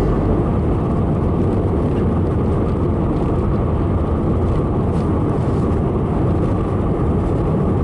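Steady road and engine noise of a car being driven, with a constant low rumble.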